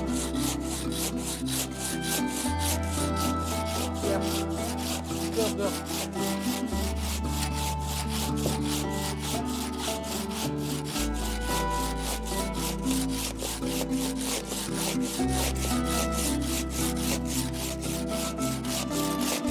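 Handsaw rasping back and forth through stone in quick, even strokes, over background music with a bass line that changes chord every few seconds.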